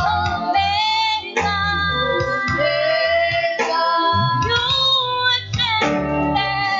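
Worship song: a woman's sung voice over an instrumental backing with bass notes that change every half second or so.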